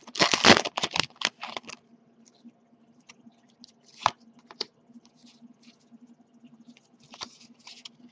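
Pokémon trading cards handled in the hand: loud rustling and sliding of card against card for the first couple of seconds, then faint scattered flicks and taps as the cards are thumbed through one at a time, over a low steady hum.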